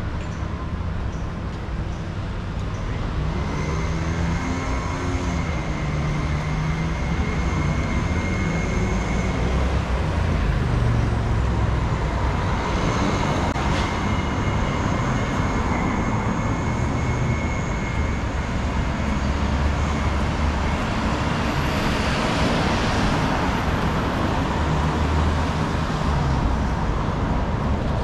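City street traffic: a steady rumble of cars and buses going by, with a faint high whine over it for much of the time. One vehicle passes close about three-quarters of the way through.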